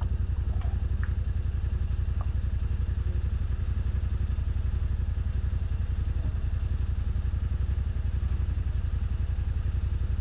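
An engine idling steadily, an even low rumble that holds the same speed throughout.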